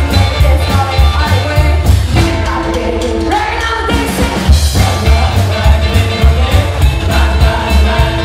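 Live rockabilly band playing with a steady driving beat: a woman singing over electric guitar, upright double bass and drums.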